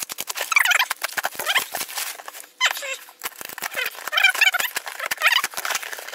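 Packing tape being peeled and ripped off a cardboard parcel, giving several short squealing rips, amid the crinkling and rustling of black plastic bag wrapping and cardboard.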